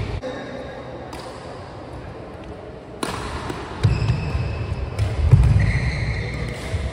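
Badminton singles rally: a racket strikes the shuttlecock with a sharp crack about three seconds in, followed by the players' feet thudding on the court during quick footwork.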